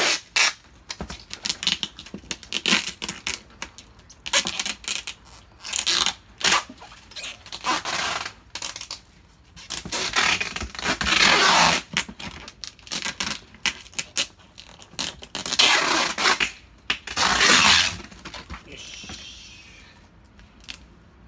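Clear plastic packing wrap being pulled off its roll and pressed onto a cardboard box: a run of short rasping rips, with two longer pulls around the middle and near the end, and crinkling and light taps between.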